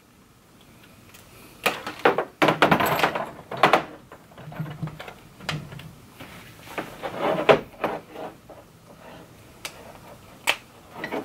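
Irregular clicks and rustling of electrical cables and small plastic connectors being handled and plugged into a 3D printer.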